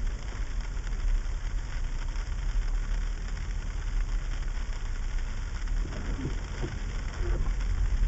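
Car driving slowly over a sleet-covered street, heard from inside the cabin: a steady low engine and road rumble under an even hiss of sleet pellets striking the windshield.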